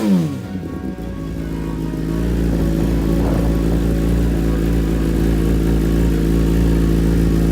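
2017 Kawasaki ZX-10R inline-four engine breathing through a Brock's Alien Head 4-into-1 full exhaust, dropping back from a blip of the throttle in the first half-second. It then settles into a steady idle.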